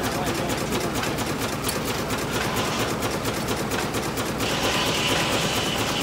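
Stationary horizontal steam engine running steadily with a fast, even mechanical clatter. About four and a half seconds in, a higher hiss joins it.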